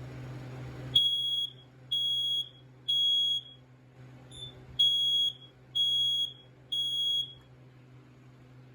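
Smoke alarm's piezo horn sounding the temporal-3 alarm pattern while being tested: three high-pitched half-second beeps about a second apart, a short pause with a brief faint blip, then three more.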